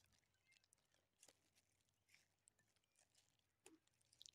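Near silence, with a few faint, short rustles of polythene grafting tape being wound around a pear graft.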